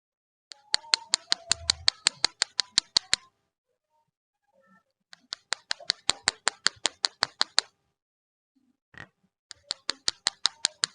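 Rapid, evenly spaced sharp clicks, about six a second, in three runs of two to three seconds each.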